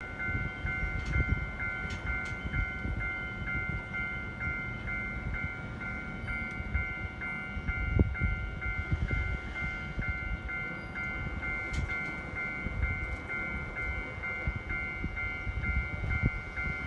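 Railway level-crossing warning bell ringing, an even two-tone electronic ding repeated about three times a second. A low rumble runs underneath, with a few sharp knocks.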